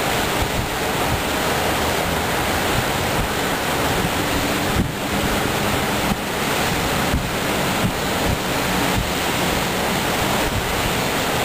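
Heavy rain pouring steadily in a thunderstorm, with wind buffeting the microphone.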